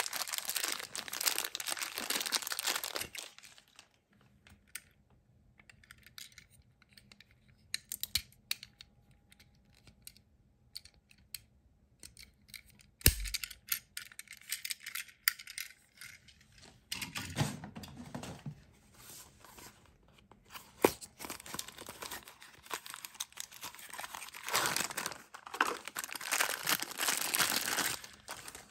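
Thin clear plastic wrapper crinkling and rustling in the hands as a die-cast toy car is unwrapped from it, in several spells with quieter gaps between. Two sharp clicks stand out in the middle.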